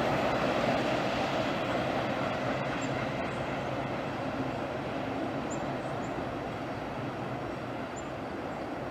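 Passing passenger train, the Pan Am Railways office car special, rumbling along the rails, the sound fading steadily as it moves away.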